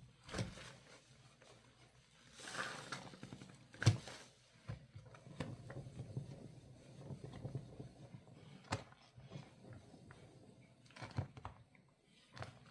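Hands squeezing and working wet, sudsy laundry: soft irregular squelches and patter with a few sharp clicks, the loudest about four seconds in.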